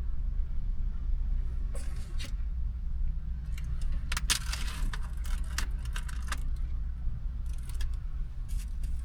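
Small objects clinking and rattling as they are handled, in several irregular bursts, the busiest about halfway through, over a steady low rumble.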